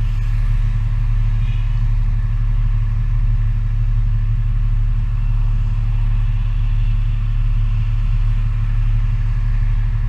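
Steady low rumble and hum of a car heard from inside its cabin while driving slowly in traffic, engine and road noise unchanging.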